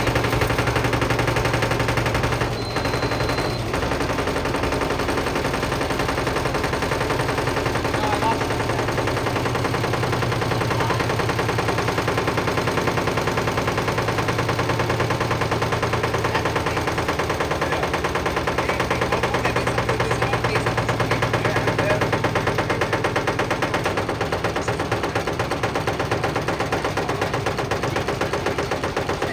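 Whirlpool washing machine with heavy bricks in the drum: a fast, continuous rattle of bricks hammering against the drum over the steady hum of the running machine.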